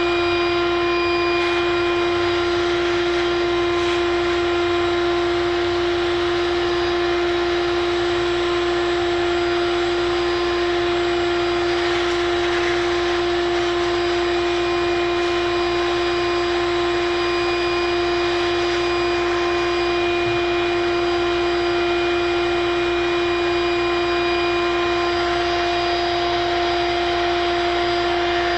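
Vacuum motor running steadily with a constant high hum and rushing air, sucking up live bees.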